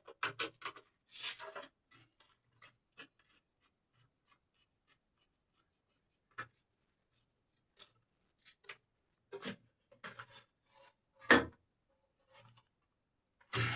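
Screwdriver tightening a wire-terminal screw on a DIN-rail surge protection device, heard as scattered small clicks and short scrapes of metal on plastic, with one louder click about eleven seconds in.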